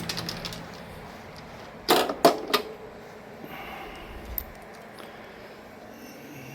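Light metal clicks and clinks of a screwdriver and small terminal hardware being handled at a lawn tractor's battery terminal, with a burst of sharp clinks about two seconds in and a single click later.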